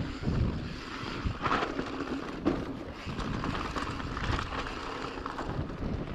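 Wind rushing over an action camera's microphone while a mountain bike rolls along a dirt trail, with tyre noise and a few sharp knocks from the bike over rough ground.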